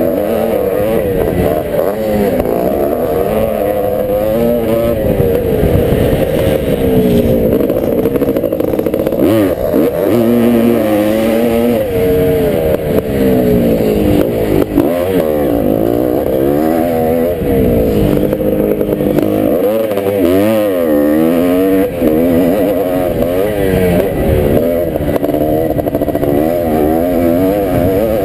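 Vintage motocross bike's engine heard from on board while racing on a dirt track, revving up and down under throttle without a break, its pitch rising and falling constantly.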